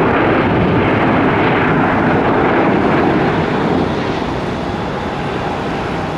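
Jet engines of a landing Boeing 757-200 airliner: a loud, steady rush of engine noise that drops off about four seconds in.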